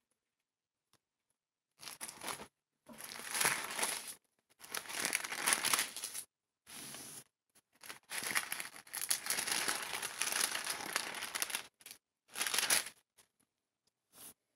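Thin Bible pages rustling as they are flipped and handled, in about six bursts with short silences between them.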